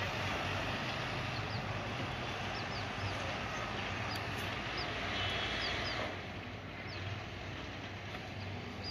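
Street traffic noise heard from above, a steady low hum with passing vehicles such as motorbikes. Short high chirps sound every second or so, and the traffic eases slightly about six seconds in.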